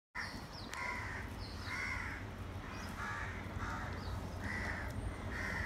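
Crow cawing repeatedly, a string of short, harsh caws about one a second.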